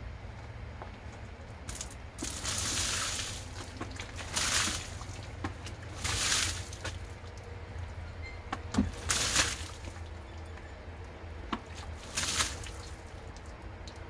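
Boiling water thrown from a plastic bucket splashing against a car door and running off, in about five separate splashes, the first the longest, over a steady low rumble. The water is being used to try to pop out a dent in the door panel.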